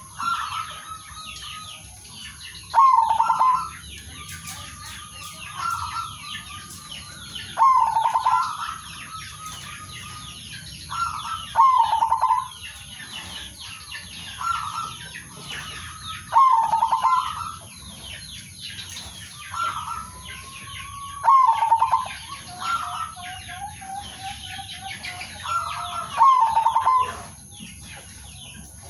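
Zebra doves cooing: a loud, rolling coo phrase about every four to five seconds, with softer answering coos in between, over steady high twittering of small birds.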